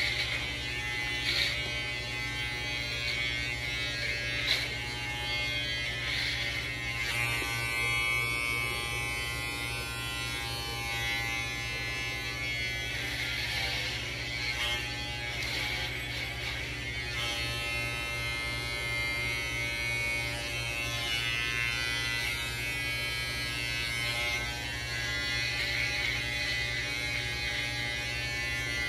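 Electric hair clippers buzzing steadily while cutting through hair.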